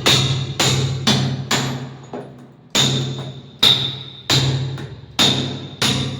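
Hammer striking a metal pan, about nine blows at an uneven hand pace with a ringing tone after each, and a short pause a little past the middle.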